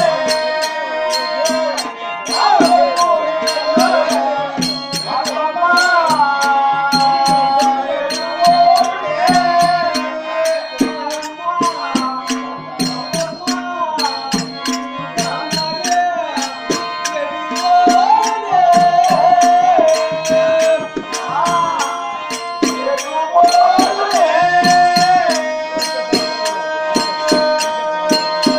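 Telugu folk-theatre music: a singer's melody rising, bending and holding its notes over steady held accompanying notes, with tabla and sharp percussion strokes keeping a quick, even beat.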